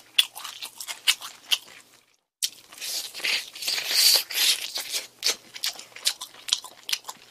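Crunching and chewing of crispy fried chicken close to the microphone: many sharp crackles, with a dense, loud crunch about four seconds in as a sauced piece is bitten. The sound cuts out completely for a moment about two seconds in.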